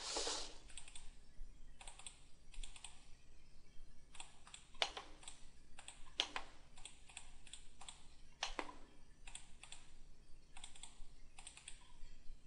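Computer keyboard and mouse clicking irregularly, with a few louder clicks among softer ones.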